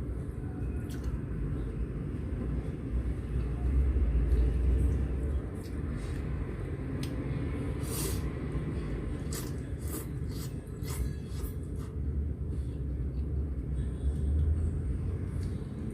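A steady low rumble that swells twice, with scattered short clicks in the middle.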